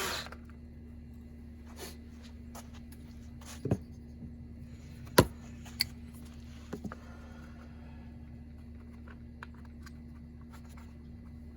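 A few sharp clicks and knocks from tools and parts being handled, the loudest about five seconds in, over a steady low hum.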